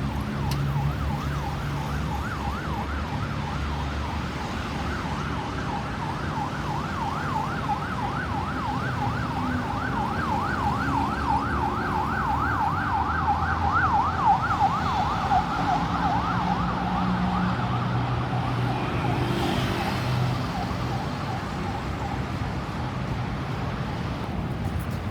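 Ambulance siren on a fast yelp, about three rising-and-falling sweeps a second, over engine and traffic noise. It grows louder as it approaches, drops slightly in pitch as it passes, and fades away near the end.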